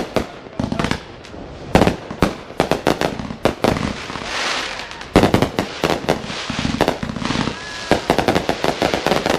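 Fireworks going off: a series of sharp bangs and rapid runs of crackling pops, with a hissing burst about halfway through.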